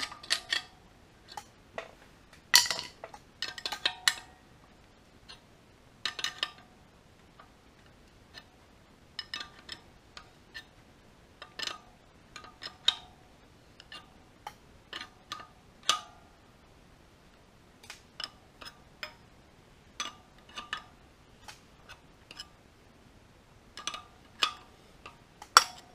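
Wrench clinking on the forcing bolt of a pilot bearing puller: scattered sharp metal clicks with brief ringing as the bolt is turned in short strokes, drawing a clutch pilot bearing out of the crankshaft. The clicks come thickest about three seconds in.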